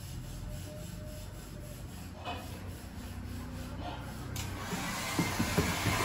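Soft rubbing of a hand working over a Rottweiler's coat. About four seconds in a hiss starts and grows louder.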